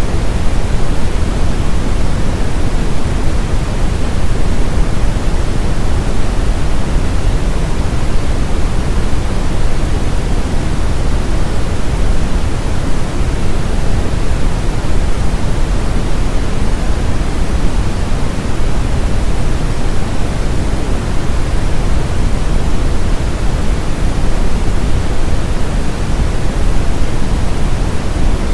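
Brown noise: a steady, even rumbling hiss, strongest in the bass, used to mask tinnitus.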